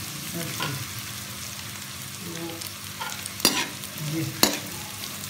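Egg frying with chicken and spring onions in hot oil in an aluminium pan, sizzling steadily while a metal slotted spoon stirs and scrapes it. The spoon knocks sharply against the pan twice, about three and a half seconds in and again a second later.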